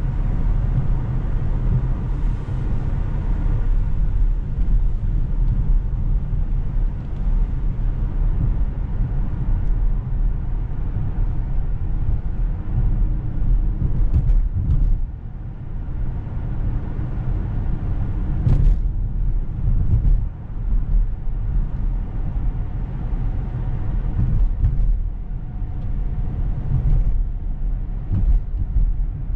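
Inside the cabin of a moving 2019 Lexus LS 500: steady road and tyre rumble with the 3.5-litre twin-turbo V6 running underneath. A few brief knocks break through, the sharpest a little past halfway.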